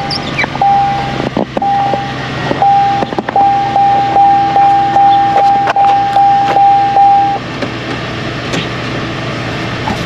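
2003 Chevrolet Silverado's 5.3 V8 idling steadily just after starting, with the truck's electronic warning chime beeping over it in short repeated tones that stop about seven seconds in.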